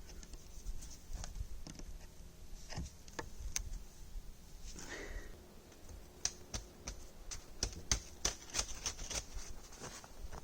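Brisk, irregular crunches and snaps from saplings and snow being handled while a shelter frame goes up, coming thickest in the last few seconds, with a short creak about five seconds in.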